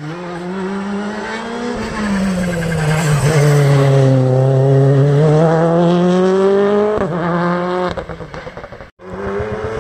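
Rally car engine passing close through a hairpin: the note falls as the car slows for the bend, then climbs steadily as it accelerates out, breaking off sharply about seven seconds in.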